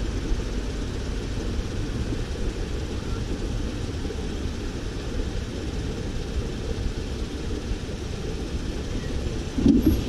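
Steady low rumble of the vehicle carrying the camera, engine and road noise as it pulls away from an intersection and turns, growing louder near the end.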